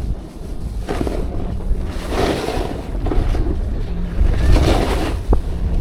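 Wind buffeting the microphone in a steady low rumble while snowboarding, with a snowboard scraping over snow in swelling hisses about two seconds in and again near the end.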